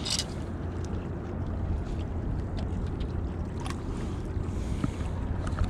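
Steady low rumble of outdoor background noise by a river, with a short rustle at the very start and a few faint clicks.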